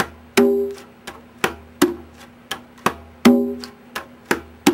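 Conga drum played with light heel and finger strokes in an even rhythm of about three strokes a second. A louder, ringing stroke comes about every three seconds.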